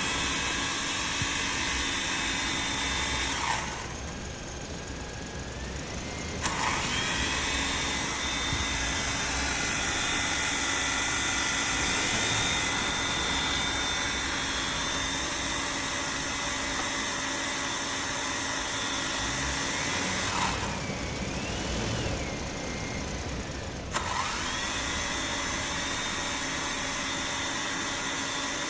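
Small toy quadcopter drone's electric motors and propellers whining steadily. Twice the whine drops away for a few seconds after a click, then comes back with another click, its pitch rising as the motors spin up again.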